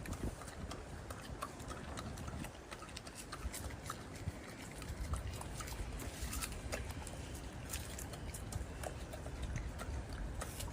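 Golden monkey eating fruit: scattered small clicks over a low, steady background rumble.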